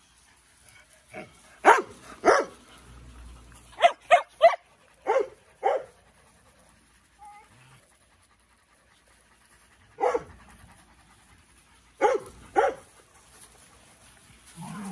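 Dogs barking: about a dozen short, sharp single barks, a quick run of them in the first six seconds, then a pause, then three more spaced out near the end.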